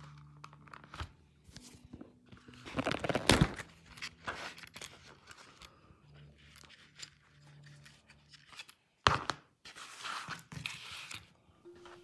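Handling noise from a leather multitool sheath with metal snap fasteners: irregular scrapes, rustles and clicks, loudest about three seconds in, with one sharp click about nine seconds in.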